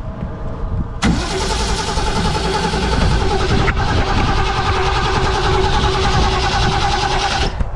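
Starter motor cranking the 1988 Ski Supreme's inboard V8 for about six and a half seconds: a steady starter whine over a fast chugging of compression strokes that starts suddenly and cuts off. The engine never catches; it will not start.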